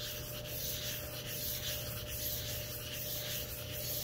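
Micarta knife scale rubbed by hand on coarse sandpaper stuck to a granite surface plate: a continuous scratchy rasp rising and falling with each stroke of a figure-eight sanding pattern. The back of the scale is being flattened and its shiny surface roughed up so epoxy will grip.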